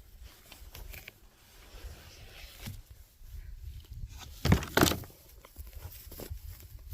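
Two sharp knocks in quick succession a little past the middle, over a low rumble and scattered faint clicks and taps.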